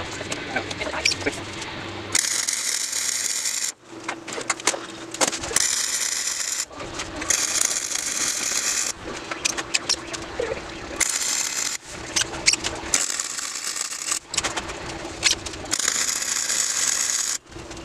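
MIG welder crackling as it lays welds on steel scrap engine sprockets and timing chain, in about seven bursts of one to three seconds with short pauses between, starting about two seconds in.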